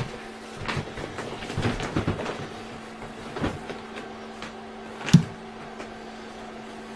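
Scattered knocks and clicks of things being handled and moved about, the sharpest about five seconds in, over a faint steady hum.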